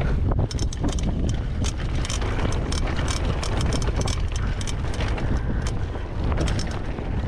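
Wind buffeting the microphone of a camera riding on a downhill mountain bike at speed, a steady heavy rumble. Frequent sharp clicks and rattles from the bike jolting over rough, dusty ground run through it.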